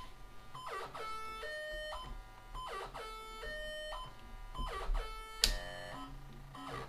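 Homemade synth built on a Synthrotek NAND Synth board, playing a repeating electronic pattern: a falling swoop followed by stepped, held buzzy tones, recurring about every two seconds as its knobs are turned. A sharp click sounds about five and a half seconds in.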